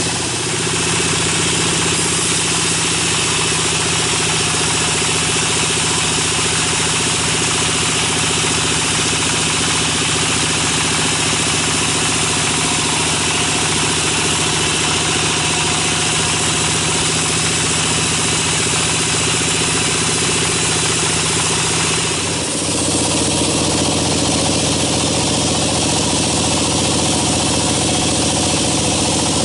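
Sawmill band saw running steadily, its blade ripping lengthwise through a log on the carriage, with a constant machine hum under the cutting noise. The sound shifts abruptly about 22 seconds in.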